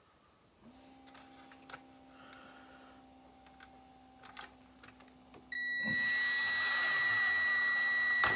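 A small electric motor runs with a steady high whine and hiss for about three seconds, starting a little over five seconds in, after a low hum and a few light clicks.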